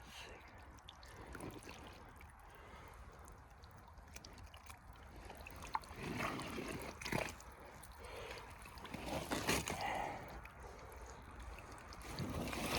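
Muck Arctic rubber boots squelching and sucking in wet peat-bog mud, with a few louder wet slurps in the second half.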